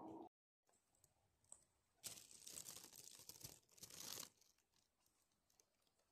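Rustling and crunching of dry leaf litter underfoot on a forest trail, one stretch of about two seconds starting about two seconds in.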